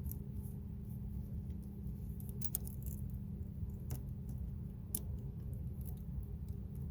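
Light clicks and taps of small metal hardware being handled as bolts are fitted to a replacement battery terminal, a few sharp ones standing out, over a steady low rumble.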